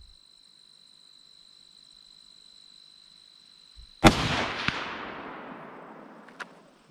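A single .308 rifle shot from a Franchi Momentum bolt-action rifle, fired about four seconds in. The report rolls away over a couple of seconds, with a faint tick about half a second after the shot.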